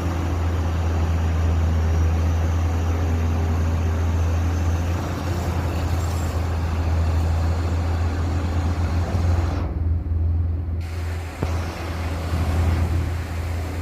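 Heavy diesel engine of a rotary drilling rig running steadily with a deep, constant hum. About ten seconds in, the higher part of the sound cuts out for about a second.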